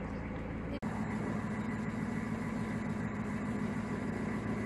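Narrowboat engine running steadily at low revs, a low even hum, with a brief dropout about a second in where the footage cuts.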